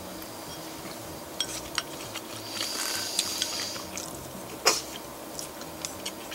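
Eating at the table: chopsticks clicking against a rice bowl and mouth noises of taking in and chewing a mouthful of rice. There are several short clicks, the sharpest about four and a half seconds in, over a faint steady hum.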